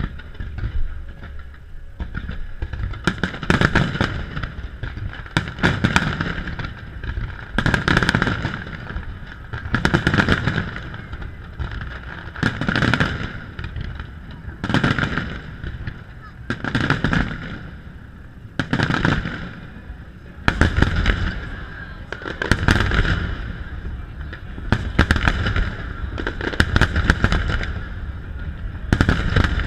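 Fireworks shells bursting overhead in a steady series of booms, about one volley every two seconds, each trailing off before the next.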